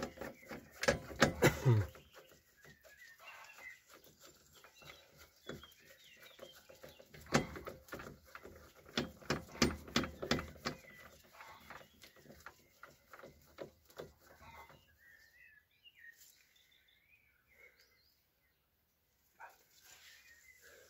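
Metal clicks and clinks of a bearing press tool being fitted by hand to a wheel hub carrier: the nut turned onto the threaded rod and the adapter cups seated against the wheel bearing. The clicks come in two clusters, the louder about a second in and another around seven to eleven seconds in, then thin out.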